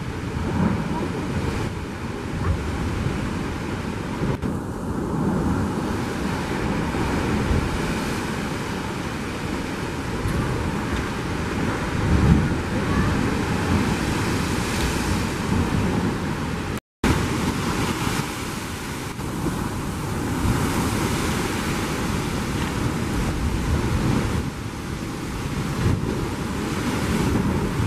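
Heavy sea surf surging and churning in a narrow rock chasm, with swells rising and falling and wind rumbling on the microphone. The sound drops out for a moment just past halfway.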